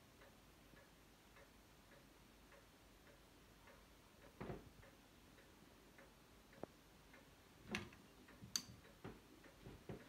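Faint, steady ticking about twice a second, like a clock, in a near-silent room. A soft knock comes about halfway through, and two sharper clicks follow near the end, around when the lamp's Edison bulb comes on.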